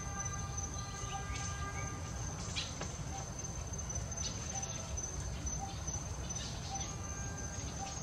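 Outdoor forest ambience: a steady high-pitched insect drone over a constant low rumble, with a few short bird chirps scattered through. A faint steady pitched hum sits underneath at the start and comes back near the end.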